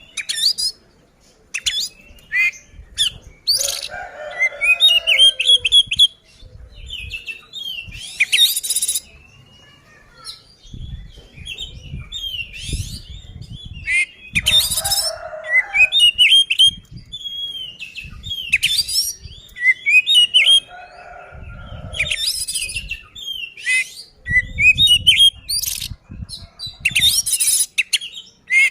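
Oriental magpie-robin (kacer) singing a loud, full fighting song, the kind that provokes rival males. It sings repeated phrases every few seconds of quick rising whistled notes mixed with harsh rasping notes.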